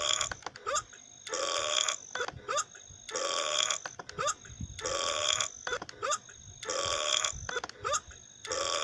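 A person burping over and over at an even pace, about every second and a half to two seconds. Each burp is preceded by a short rising sound.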